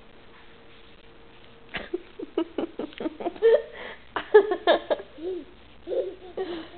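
Short bursts of giggling laughter start with a knock about two seconds in, after a faint steady hum.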